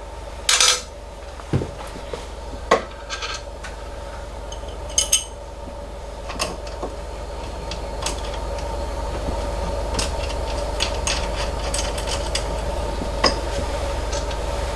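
Scattered clinks and knocks of metal parts and hand tools while a steel-tube filament holder is bolted onto a 3D printer, over a steady hum.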